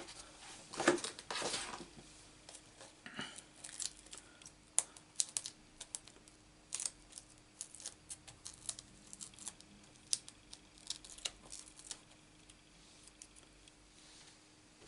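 Hands handling a paper card topper and a plastic case while fitting foam adhesive dimensionals: a sliding, rustling noise in the first two seconds, then scattered light clicks and taps of paper and plastic on the craft mat.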